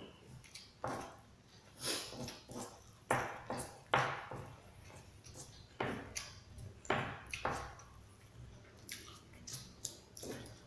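Eating sounds: a spoon and fork scraping and tapping through rice on a paper wrapper, with chewing, as short irregular scrapes and clicks about once a second.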